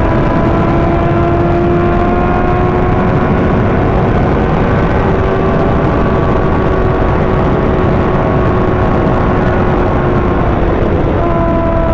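2025 Kawasaki ZX-6R's inline-four engine running at steady cruising throttle, its pitch slowly climbing and then easing off, with a step up in pitch near the end. Heavy wind rush on the microphone.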